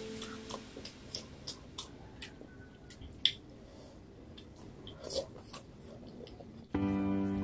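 Mouth eating sounds: chewing and lip smacks, with scattered soft clicks as fingers pick rice and fish from the plates. Background music with a steady beat comes back in near the end.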